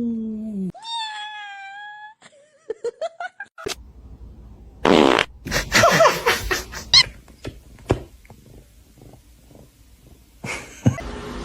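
Cat meowing: a long yowl falling in pitch trails off, then a shorter meow rises. After a cut come a loud, short rasping burst and scattered knocks and clatter.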